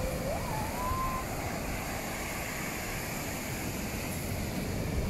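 Big ocean waves breaking on the shore: a steady rush of surf. In the first second a thin, faint tone glides upward and holds briefly before fading.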